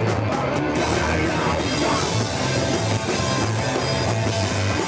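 Hardcore punk band playing live: drum kit with cymbals and distorted electric guitar.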